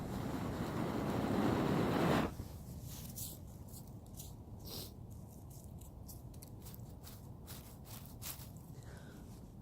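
Wind buffeting the microphone, growing louder for about two seconds and then cutting off suddenly, followed by scattered light clicks and scrapes of handling.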